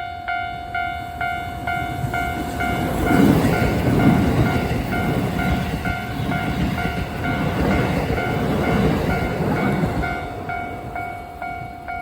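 Japanese level-crossing warning bell ringing about twice a second while a Keisei Electric Railway train passes. The train's rumble and wheel noise swell from about three seconds in and fade out by about ten seconds in, with the bell carrying on throughout.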